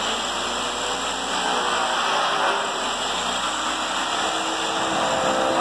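Rotary polisher running steadily as it buffs an aluminum truck drive wheel, on the first cutting stage of polishing.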